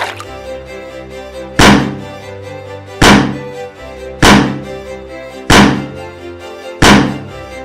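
A heavy thunk sound effect struck five times at an even pace, about one every 1.3 seconds, over steady background music.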